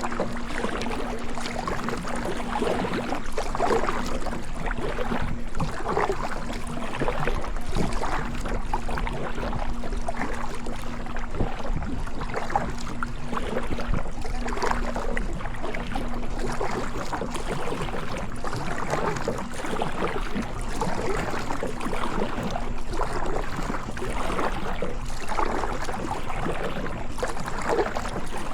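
Kayak paddle strokes swishing through the water, about one every two seconds, over a steady water rush. A faint steady hum stops about halfway through.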